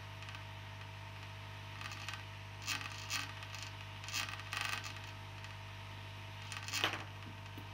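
Aoyue INT852A+ hot-air rework station running steadily as its nozzle heats a circuit board, a low hum with a faint hiss of airflow. A handful of short scratchy clicks are heard, the loudest near the end.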